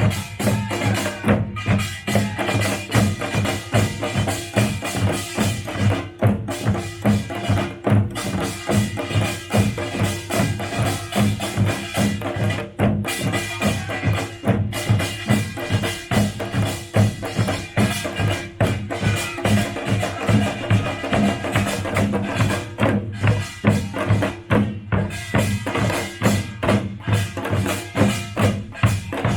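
Pungmul (Korean farmers' band) percussion ensemble playing live: drums struck in a fast, dense rhythm over the steady ringing of metal gongs.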